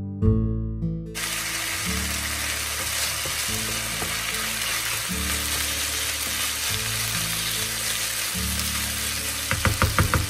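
Washed long-grain rice frying in olive oil and garlic in a pan, a steady sizzle as it is toasted before the water goes in, stirred with a wooden spoon, with a quick run of sharp scrapes near the end. Acoustic guitar music plays for the first second, then continues softly under the sizzle.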